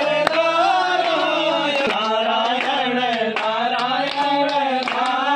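Hindu devotional chanting sung as a continuous melodic line, with a few sharp clicks at irregular moments.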